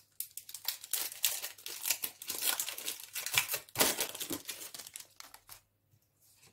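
Foil Pokémon booster pack wrapper being torn open and crinkled in the hands, a dense run of crackles that dies away about five and a half seconds in.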